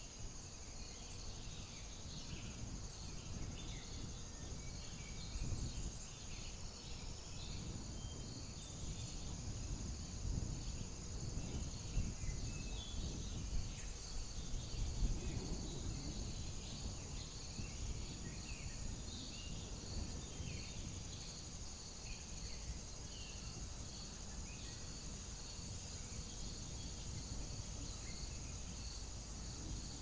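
A steady high insect trill, like crickets, runs under many short, high chirps from small birds scattered through it, over a constant low rumble.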